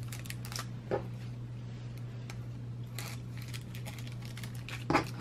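Clear plastic sleeves and paper sticker sheets crinkling and rustling as they are handled, with a steady low hum underneath. There are two short knocks, about a second in and a louder one near the end.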